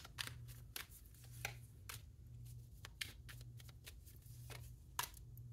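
Tarot cards being handled and laid down on a table: a string of faint, irregular clicks and taps of card against card and tabletop.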